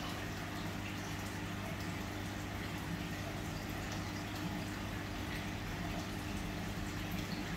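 Fish-tank pumps and aeration running: a steady low hum under a faint, even bubbling of water.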